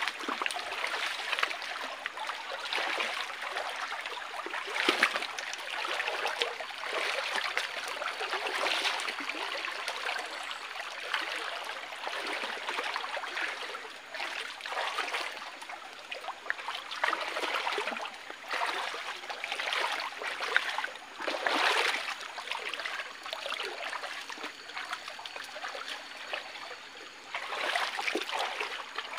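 Shallow rocky stream running and trickling, with irregular splashing as people wade through the water.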